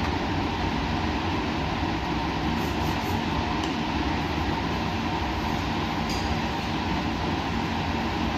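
Steady drone of laboratory machinery: a low, even hum with a rushing noise over it, and a few faint high ticks about three and six seconds in.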